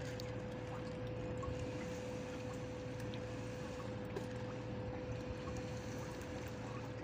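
Wet fishing net being hauled hand over hand into a small boat, water trickling and dripping off the mesh, over a steady hum.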